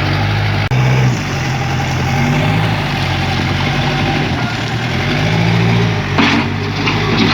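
Backhoe diesel engine running at a steady working level, its note rising and falling a few times as it is throttled up and down.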